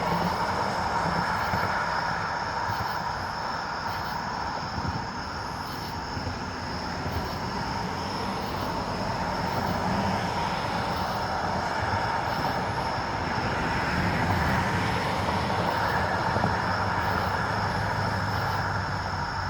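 Steady distant rumble and hiss of far-off mechanical noise with a faint steady whine, swelling slightly in the middle and again near the end.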